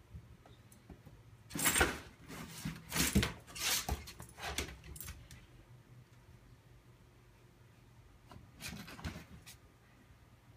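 A dog sniffing and nosing at a backpack while hunting a mouse: a run of short, noisy sniffs and rustles lasting a few seconds, then a shorter run near the end.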